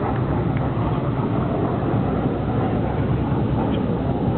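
Steady rumble of aircraft engines from a formation of a P-47 Thunderbolt, P-38, P-51 and an F-22 flying overhead.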